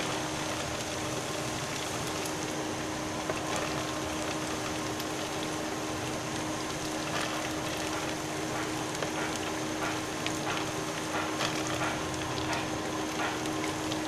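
Pakoras deep-frying in hot oil in a kadai, a steady sizzle with small crackles, over a steady low hum.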